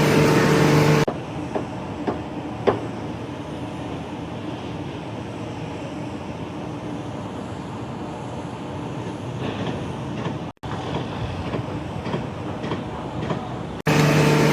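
Steady mechanical rumbling noise, with one sharp click a few seconds in and a brief cut out about two-thirds of the way through; short stretches of background music at the start and the end.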